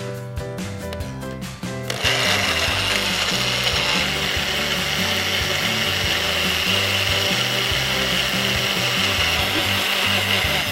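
Kenwood blender starts about two seconds in and runs steadily, blending fruit into a smoothie, then stops. Background music plays throughout.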